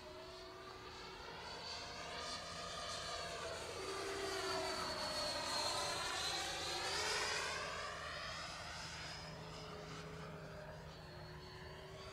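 Electric ducted fan of a radio-controlled Avios MiG-17 jet whining as it flies past. It grows louder to a peak around the middle, then eases off a little as it moves away.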